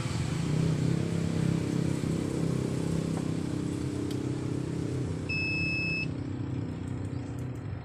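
A steady low mechanical drone, with one short, high electronic beep about five seconds in that lasts under a second, typical of a multimeter's tester beep during a wiring check.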